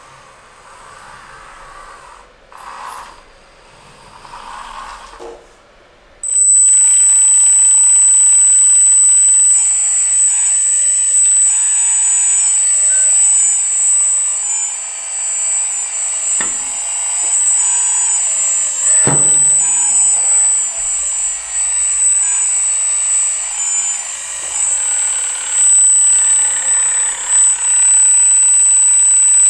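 Small electric hydraulic pump of an RC Bobcat skid-steer loader cutting in about six seconds in and running with a steady high whine. Wavering tones from the hydraulics and drive motors rise and fall as the bucket lifts and the loader moves.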